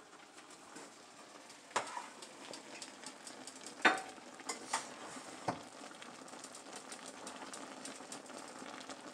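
Tilapia with tomatoes simmering in vinegar broth in a frying pan on an electric stove: a steady bubbling sizzle, with a few sharp clicks, the loudest about four seconds in.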